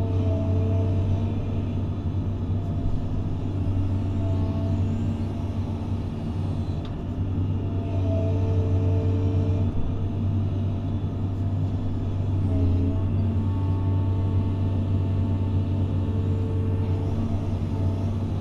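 Doosan DX180 excavator's diesel engine running steadily under load as the bucket digs into a dirt pile, with a whine from the hydraulics that comes and goes as the boom and bucket are worked. Heard from inside the operator's cab.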